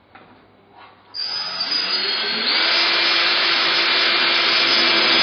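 Cordless drill-driver run against a plastered window reveal, starting abruptly about a second in, picking up speed, then running at a steady pitch under load.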